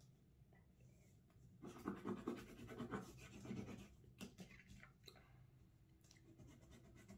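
Faint crayon scribbling on paper: quick back-and-forth colouring strokes, busiest for a couple of seconds from about one and a half seconds in, then a few small taps.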